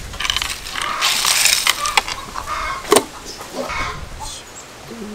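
Ice cubes clinking and settling onto a plate of sliced green mango: a run of small clinks in the first two seconds, then a single sharp knock about three seconds in.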